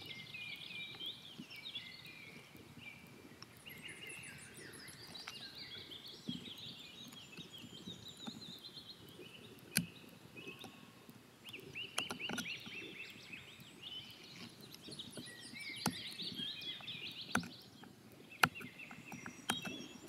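A knife blade carving a wooden hatchet handle, with scraping shaving strokes and several sharp clicks of the blade on the wood, the clicks the loudest sounds. Birds sing and chirp steadily in the background.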